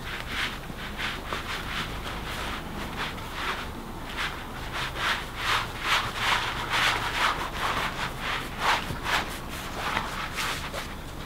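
A hand-held cylinder rubbed back and forth over a sheet of paper in repeated scraping strokes. The strokes grow louder and quicker about four seconds in, at about three a second.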